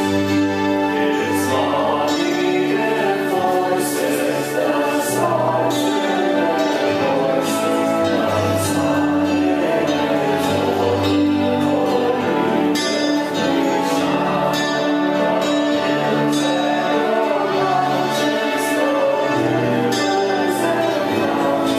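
Music with singing voices and instrumental accompaniment, a worship song.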